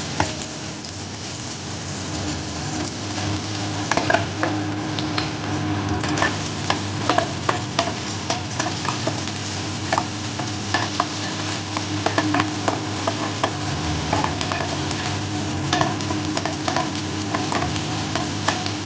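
Eggs sizzling in hot oil in a nonstick wok while a spatula scrapes and taps against the pan over and over, chopping and stirring them into scrambled pieces.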